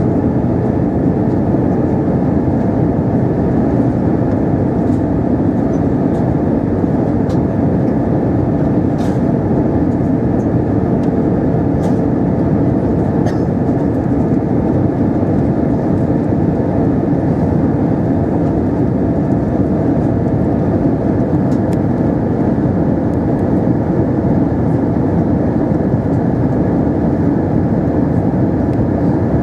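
Steady cabin noise of a British Airways Airbus A320-232 in flight on approach: a low, even drone of engines and airflow, with a few faint ticks.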